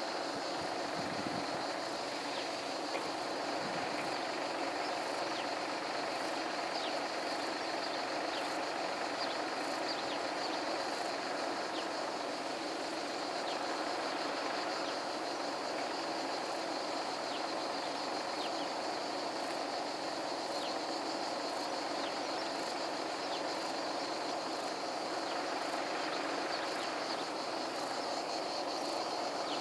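Steady rural outdoor ambience: a continuous high insect drone with frequent short bird chirps over it.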